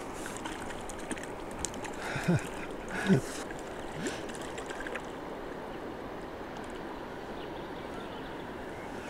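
Hooked crucian carp splashing at the water surface as it is played on the line, over a steady outdoor hiss. Two short low sounds stand out about two and three seconds in.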